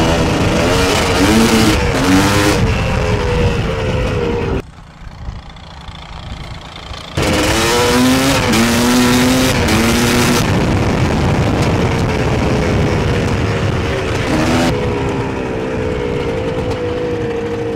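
GR7 250 two-stroke enduro motorcycle's single-cylinder engine revving up hard under throttle, its pitch climbing and dropping back several times as it shifts up through the gears. About five seconds in the sound falls away sharply for a couple of seconds, then the engine pulls up through the gears again and settles to a steadier run with a slowly falling pitch.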